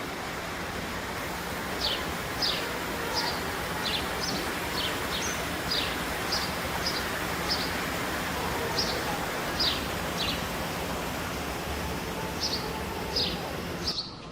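Outdoor ambience: a steady rushing background with a bird repeating short, falling chirps, about one or two a second. The ambience cuts off abruptly near the end.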